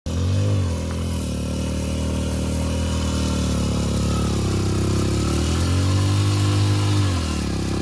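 Hero Splendor Plus motorcycle's single-cylinder four-stroke engine running, its revs rising briefly near the start and again for a couple of seconds in the second half before dropping back.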